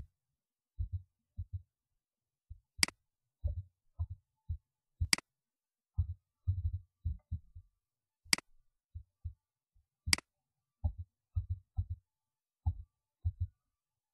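Typing on a computer keyboard while entering numbers into form fields: short bursts of dull, low keystroke thuds, with five sharp, brighter clicks scattered through, one about every two to three seconds.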